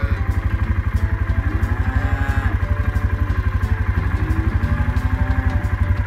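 Engine of the vehicle she is riding, running steadily at low speed with an even, rapid low throb.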